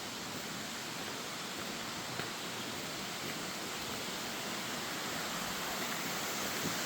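Steady rushing of water from the creek and falls, an even hiss that grows slightly louder, with a faint tick of a footstep about two seconds in.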